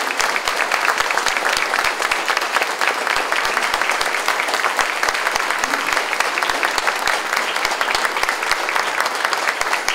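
Audience applauding steadily: dense, even clapping from many hands at once.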